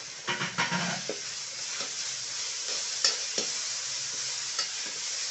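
Tomato sizzling as it fries in hot oil with onions and green chillies in a metal kadhai, stirred with a metal ladle that scrapes and knocks against the pan, the sharpest knock about three seconds in.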